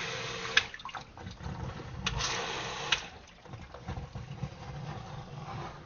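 Water churning and gurgling in a sump pit as the sump pump runs and pumps it down, with a few sharp clicks, loudest about two to three seconds in.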